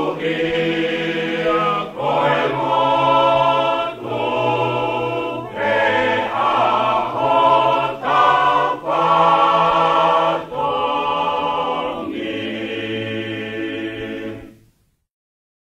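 Choir singing a Tongan song phrase by phrase, ending on a long held chord that cuts off suddenly near the end.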